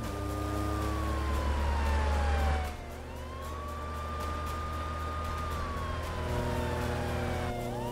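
Police car siren in a slow wail, holding high, gliding down and sweeping back up, twice. Under it is a low rumble that drops away about two and a half seconds in.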